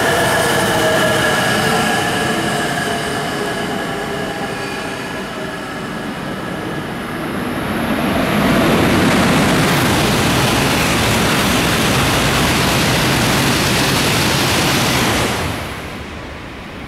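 A Tsubasa Shinkansen runs slowly through on the passing track and draws to a stop. A whine of steady tones from the train fades over the first few seconds. From about eight seconds in, a loud, even rush of train noise takes over and drops off sharply near the end.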